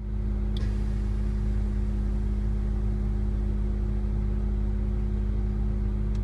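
Air-ride suspension compressor running with a steady electric-motor hum, filling the air tank as the tank pressure climbs past 100 psi. A short click sounds about half a second in.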